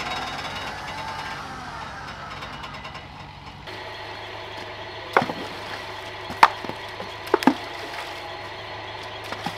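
Suzuki Samurai's engine running and revving under load on a rocky creek climb. It stops abruptly a few seconds in, and then there are several sharp knocks of rocks being handled in a creek bed: one about five seconds in, one at six and a half, and a quick pair soon after.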